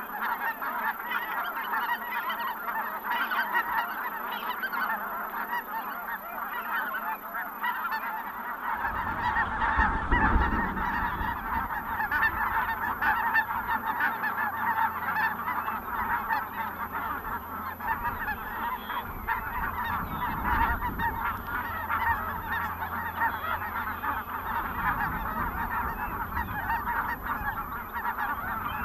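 A large flock of Ross's geese calling without a break, a dense chorus of many overlapping high-pitched honks. A low rumble joins about a third of the way in.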